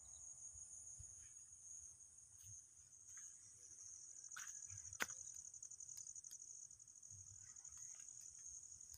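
Faint steady high trill of insects chirping in the field, with one sharp click about five seconds in.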